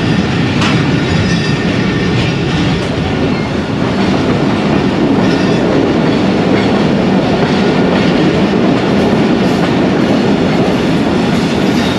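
Local passenger train running, heard from aboard: a steady rumble and rattle of the coach, with wheels clicking over the rail joints.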